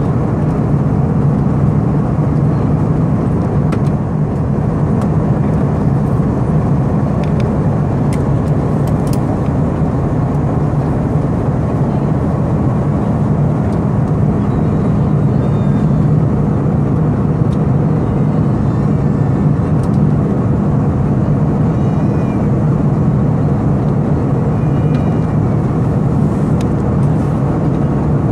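Steady cabin noise of an Airbus A319 on descent: a constant low hum and rush of engine and airflow noise heard from inside the passenger cabin.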